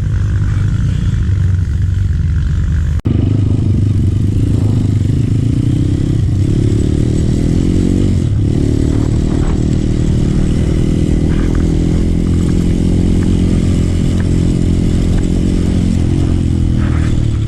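Trail motorcycle engine running steadily under way, with its pitch dipping briefly a couple of times. There is a sudden short break about three seconds in.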